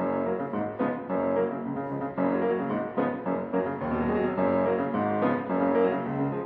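Background piano music: a run of sustained notes and chords at a steady, moderate pace.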